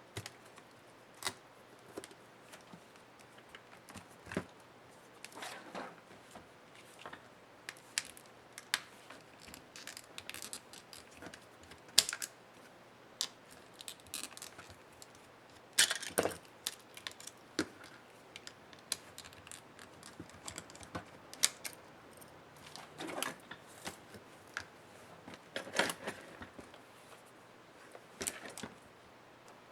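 Irregular clicks, taps and short scrapes of small tools against plastic and metal laptop parts being handled during disassembly, with the sharpest knocks about 12 and 16 seconds in.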